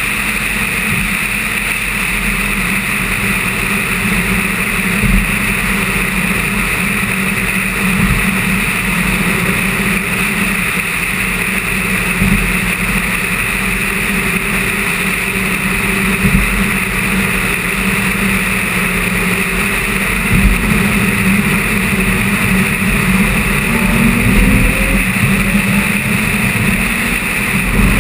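Car cruising at highway speed: steady engine, tyre and wind noise with a few short thumps. An engine note rises near the end.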